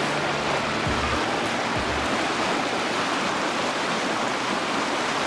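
Steady rush of shallow moving water, an even wash with no distinct splashes.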